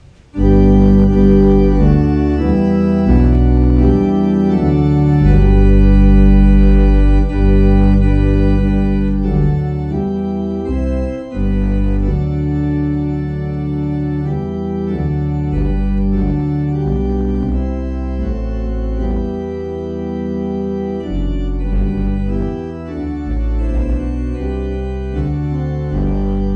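Organ playing offertory music: sustained full chords with a deep bass, starting suddenly just after the beginning and moving from chord to chord every second or two.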